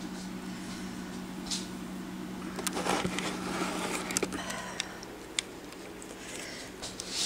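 Handling noise as a camcorder is picked up and moved by hand: rubbing with a cluster of clicks and knocks, mostly between about two and a half and five seconds in, over a steady low hum.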